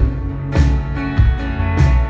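Live band playing a pop-rock song: drum hits on a steady beat, a little under twice a second, over bass and strummed acoustic guitar.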